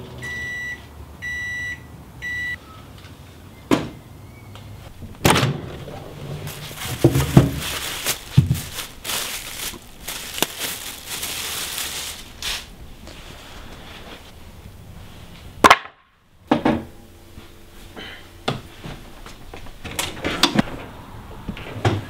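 Microwave oven beeping three times, followed by irregular clunks and knocks of the oven door and the wooden drum staves being handled at it.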